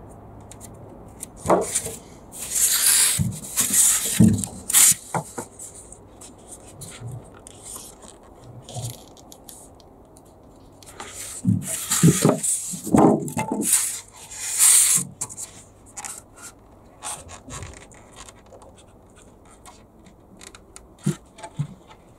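Scraping and rubbing as a foam floor-insulation board is handled and marked out on a plywood worktop, in two bouts of a few seconds each with a few scattered knocks.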